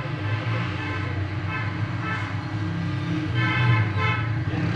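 Hot-air rework gun blowing steadily, heating the solder to free a mobile phone's microphone, over a steady hum of several tones. Two short higher-pitched tones come in, about two seconds in and again near the end.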